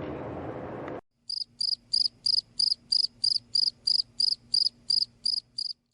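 Cricket chirping sound effect: a steady run of about fourteen short, high chirps, about three a second, that starts about a second in after a stretch of background noise cuts off abruptly.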